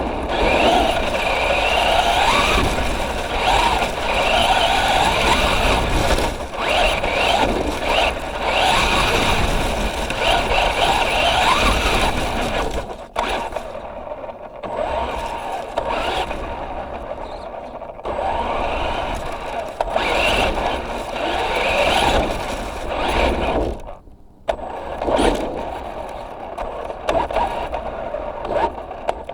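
Traxxas Rustler 4x4 RC truck's electric motor and drivetrain whining, the pitch rising and falling again and again as the throttle is opened and eased off, with rough noise from the truck running over the ground. The whine drops away briefly twice, about halfway through and again near the end.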